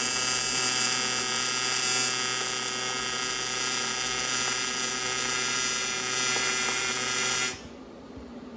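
Welding arc on a thin aluminum AC refrigerant line joined to its manifold: a steady buzzing hiss that cuts off suddenly near the end as the arc is broken.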